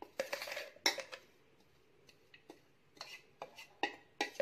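A metal spoon scraping and clinking inside a stainless-steel mixer-grinder jar as ground almonds are emptied onto a plate. It is a string of short scrapes and sharp clinks, the sharpest about a second in, with more near the end.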